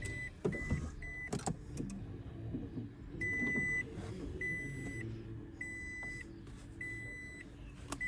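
Toyota Prius warning chime beeping: short quick beeps about three a second at first, then from about three seconds in longer beeps a bit over a second apart, with a single knock about a second and a half in.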